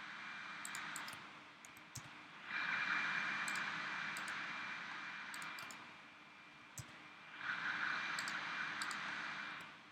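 Computer mouse clicking, scattered single and double clicks, over a steady hiss that swells up and fades away twice.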